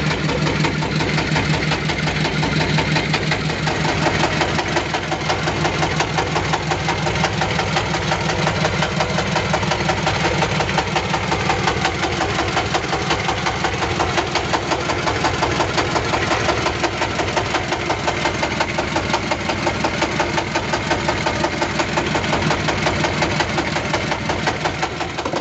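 A fishing boat's engine running steadily with a fast, even beat.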